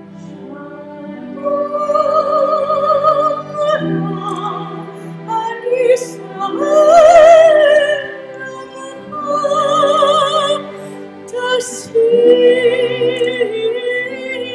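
Amplified soprano singing phrases with a wide vibrato over soft, sustained orchestral accompaniment. Her loudest, highest held note comes about halfway through.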